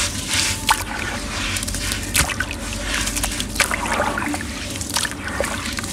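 Wet black sand-cement crumbling from squeezing hands into a tub of water, with irregular splashes and trickling, then hands sloshing and pressing the soaked clumps under the water.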